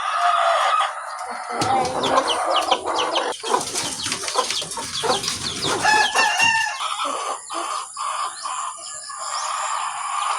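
A flock of laying hens clucking and calling, with a busier, noisier stretch of calls and scuffling from about a second and a half in to about seven seconds.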